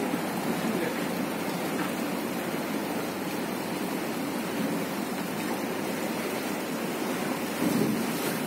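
Steady rushing noise of a houseboat under way on open water, with no distinct tones or strokes.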